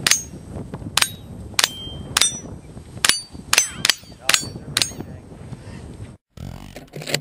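About nine rifle shots in quick succession, roughly half a second to a second apart, each followed by a short ringing note from the hanging musical target as a piece is struck, the notes at different pitches.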